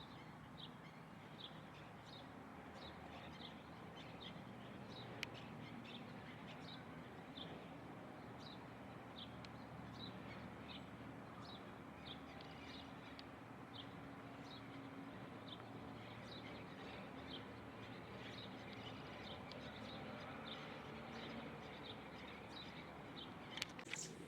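Small birds chirping: short, high chirps repeated a few times a second throughout, faint over a low steady hum.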